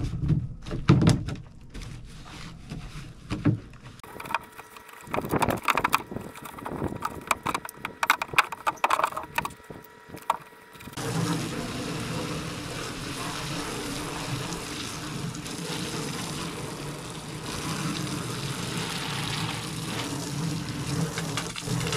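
Irregular scraping and knocking of a long-handled brush on a plastic kayak hull for about the first ten seconds, then a steady rush of water spraying from a hose wand onto the hull.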